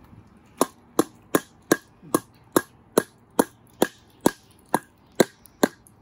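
Rubber mallet hammering on a wooden board laid on top of metal garden edging, driving the edging into the soil. A steady run of about a dozen sharp knocks, a little over two a second, starting about half a second in.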